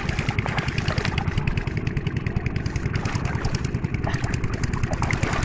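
A small engine running steadily at an even, fast rhythm.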